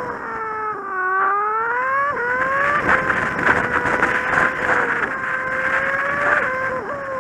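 Kawasaki Z750 inline-four engine heard from the bike while riding: its pitch sinks early on, climbs again, then holds steady, with a few sudden pitch jumps as gears are changed. Wind and road noise run underneath.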